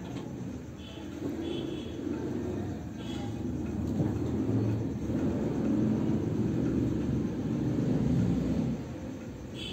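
A low rumble that swells through the middle and drops away suddenly near the end, with a few short high chirps over it.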